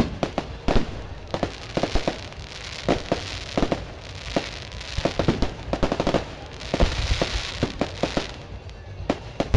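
Fireworks display: aerial shells bursting in a rapid, irregular string of sharp bangs, several a second at times, with stretches of hiss between them around the middle and again near the end.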